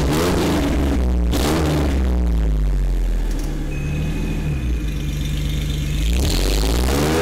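1998 Mustang engine idling and being revved through a homemade exhaust with emptied-out catalytic converters and homemade mufflers. There are short throttle blips just after the start and again about a second and a half in, then a longer rev that rises and falls back near the end.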